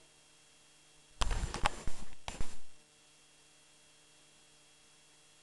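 A short cluster of knocks and clattering about a second in, lasting about a second and a half, in an otherwise near-silent room.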